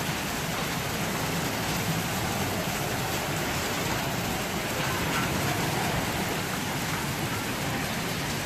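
Rain pouring steadily onto standing floodwater on paved ground: a constant, even splashing hiss with no breaks.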